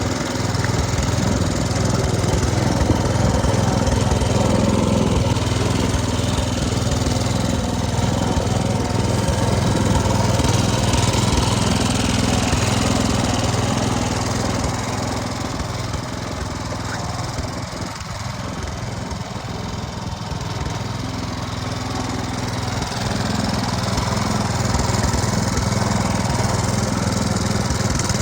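Lawn tractor engine running steadily as the tractor drives, with its mower blade removed. It gets somewhat quieter a little past the middle, then louder again near the end.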